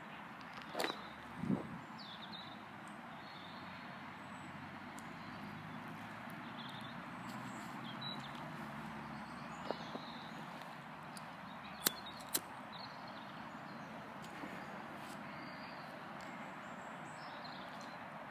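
Quiet outdoor park ambience: a steady background hum with faint, scattered bird chirps, and a few brief clicks, two of them close together about twelve seconds in.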